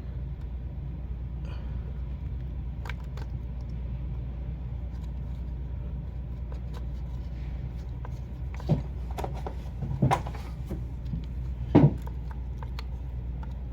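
Multimeter test probes being fitted onto a fuel injector's electrical terminals: a few light clicks and knocks, the loudest near the end, over a steady low hum.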